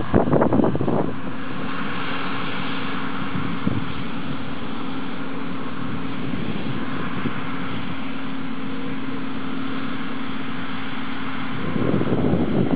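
Combine harvester running steadily with a constant hum. Wind buffets the microphone for about the first second and again near the end.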